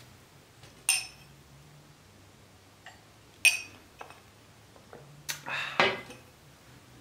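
Cut-crystal tumbler clinking against a glass tabletop as it is handled, lifted and set back down: a sharp clink about a second in, a louder one halfway through, and a closer cluster of clinks near the end as it is put down.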